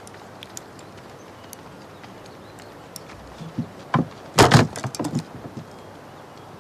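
Faint small clicks, then about four seconds in a quick cluster of loud wooden knocks and clatters as several scabbarded swords are slapped down onto a wooden table.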